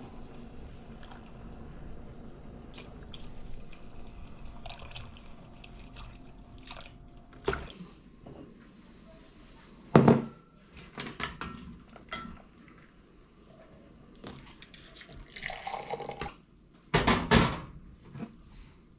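Milk poured into a simmering saucepan of ginger tea, then glassware handled on a kitchen counter: a sharp knock about ten seconds in, clinks, tea poured into a glass, and a loud clatter near the end.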